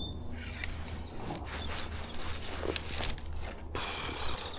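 Rustling and clicking handling noises, with a louder knock about three seconds in.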